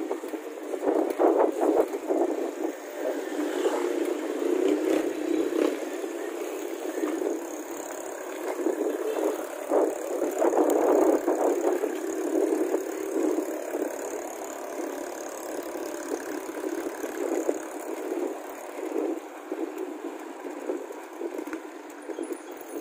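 Riding noise of a mountain bike on a concrete lane, picked up by a smartphone strapped to the rider's chest: an uneven, fluctuating rumble with many small rattles and knocks, louder in surges near the start and about halfway through.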